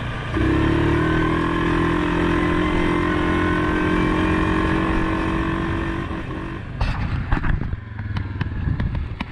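An engine running at a steady speed with a held, even hum, which drops away about six and a half seconds in. It leaves a lower running sound broken by several sharp clicks and knocks, as of fabric brushing and handling against the microphone.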